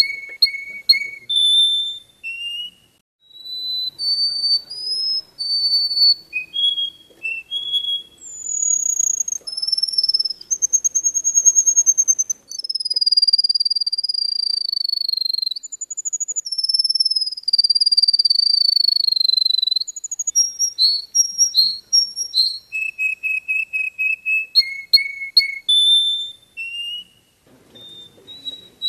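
Canary singing a long, varied song of high whistled notes and rapid trills, with long held notes that slide slowly downward in pitch near the middle.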